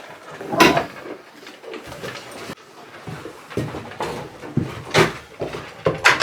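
A few sharp knocks and clatters, the loudest about half a second in and about five seconds in, with quieter background noise between them.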